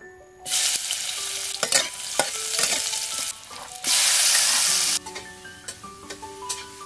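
Onions and aromatics hitting hot oil in a steel wok and sizzling loudly from about half a second in, with a second loud burst of sizzling about four seconds in as more is tipped in. After that the frying is quieter, with the spatula clicking and scraping against the wok.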